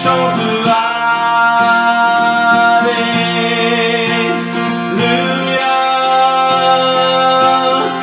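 A man singing a slow worship song with long held notes, accompanying himself on a strummed acoustic guitar.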